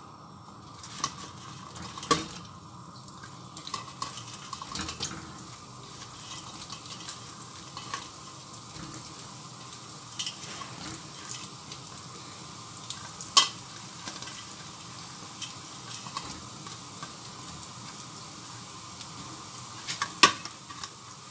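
Pre-fried zalabia (luqmat al-qadi) dough balls frying in hot oil in a stainless-steel pan with a steady sizzle; this is their second frying, to make them crisp. A few sharp metal clinks from the pots and pans come through it, the loudest about 13 and 20 seconds in.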